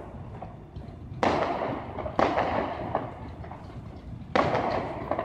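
Aerial fireworks going off: three sharp bangs, the first about a second in, the next a second later and the last near the end, each trailing off in a long rumbling echo.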